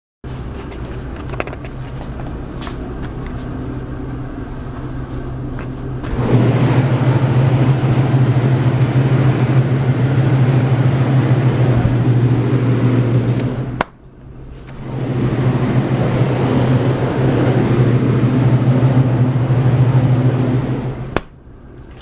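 Steady mechanical hum of commercial reach-in freezer cases, their fans and refrigeration running. It grows much louder twice, for about seven seconds each time, and each loud stretch cuts off suddenly with a click.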